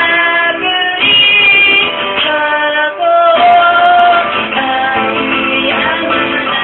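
A woman singing while strumming an acoustic guitar, holding one long note about halfway through.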